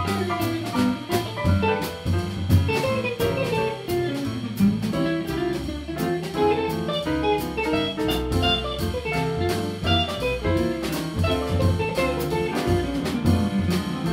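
Live small-group swing jazz, instrumental: piano, archtop guitar, upright bass and drum kit keeping a steady swing beat.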